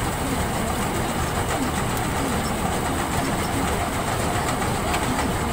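Standard TSC-513 combine harvester running steadily while unloading grain through its auger spout, a dense, even machine noise with no breaks.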